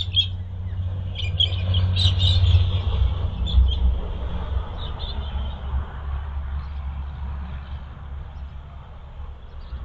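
Short high chirps, like small birds, in scattered clusters during the first half, over a steady low rumble that slowly fades.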